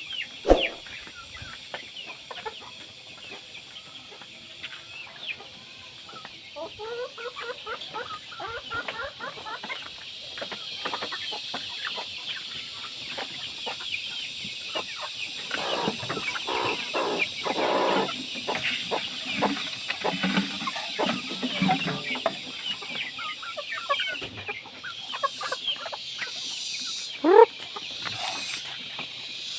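Free-range chickens clucking and calling, with one loud rising call near the end.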